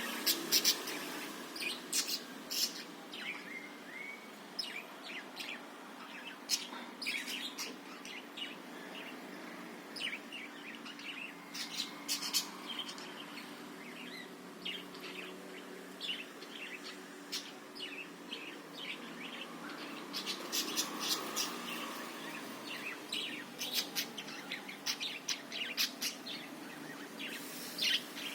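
Parakeets chattering: quick, irregular chirps and short warbled notes, in denser bursts now and then, over a faint steady low hum.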